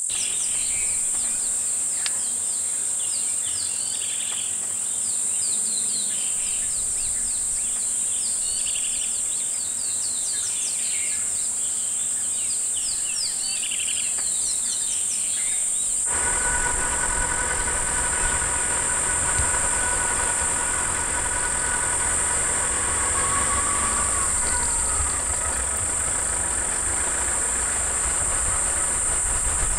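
A steady, high insect buzz runs throughout. For the first half it carries many short, high chirping calls. About halfway through it changes abruptly to a vehicle engine idling, a low rumble with a steady hum.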